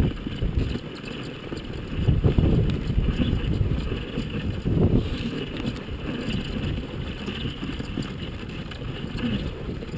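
Dog sled moving over packed snow: a steady rushing and scraping of the runners mixed with wind on the microphone, swelling louder around two to three seconds in and again near five seconds.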